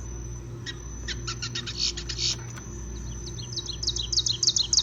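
Recorded bird calls played from a push-button museum display. First come scattered short chirps, then from about three and a half seconds a quick series of high, downward-sweeping notes, over a steady low hum.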